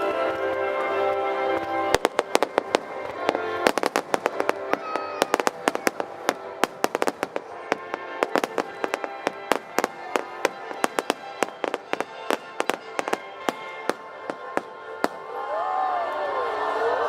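Fireworks going off in rapid volleys, dozens of sharp bangs and cracks in quick succession, over music played with the display. The bangs thin out about 15 s in and a crowd cheers near the end.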